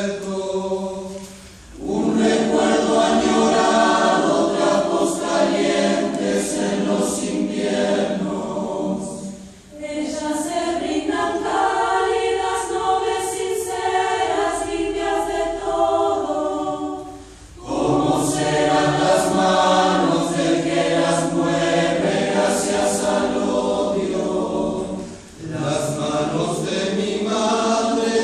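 Mixed choir of young and adult voices singing a choral arrangement in long phrases, with brief breaks for breath about every eight seconds.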